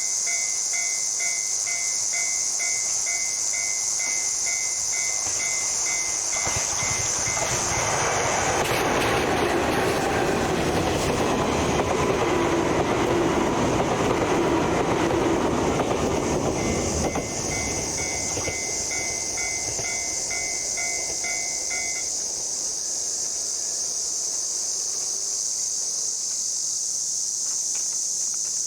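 Level crossing alarm bell dinging about twice a second, then a train passing over the crossing: its rumble and wheel clatter swell for about ten seconds and drop away suddenly. The bell is heard again after the train has gone and stops a few seconds later.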